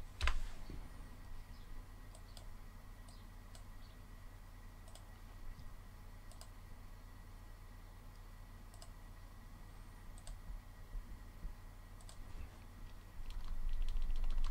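Computer mouse clicks and keyboard keystrokes, sparse and scattered, with a quicker run of keystrokes near the end.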